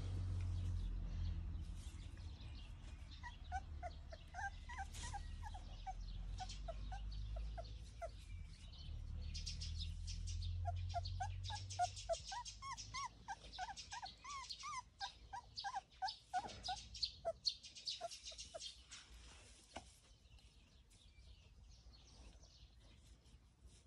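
A dog whining in runs of short, high squeaks, several a second, in bursts from about three to nineteen seconds in, over a low rumble in the first half.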